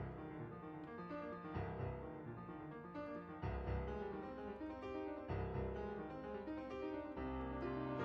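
Solo piano music: an anime-song piano arrangement playing with sustained chords and a running melody.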